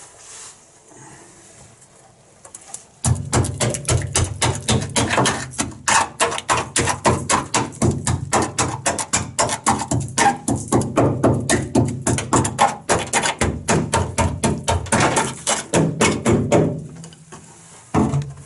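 Screwdriver scraping rapidly back and forth on the steel boot floor of a classic Mini, about five strokes a second for some fourteen seconds, probing a patch of the floor that feels soft.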